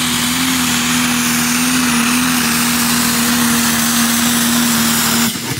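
A tractor engine running loud and steady at high revs, as in a pull. The sound drops away abruptly near the end.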